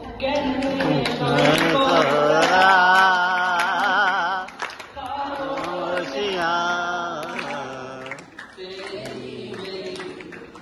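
A man singing unaccompanied into a microphone, holding long notes with vibrato, in three phrases with short breaks between them; the last phrase is quieter.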